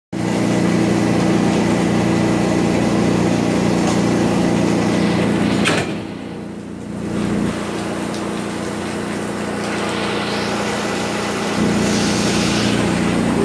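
NJ Transit Arrow III electric multiple unit humming steadily at the platform before departure, with several low tones from its onboard electrical equipment. A sharp click and a short drop in level come about six seconds in, then the hum goes on.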